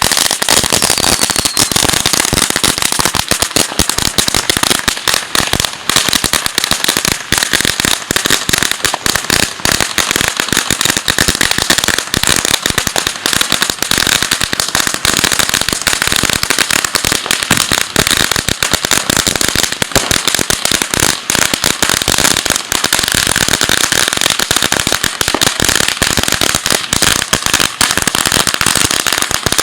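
Firecrackers going off in a dense, continuous crackle of rapid pops with no break, typical of New Year's Eve fireworks.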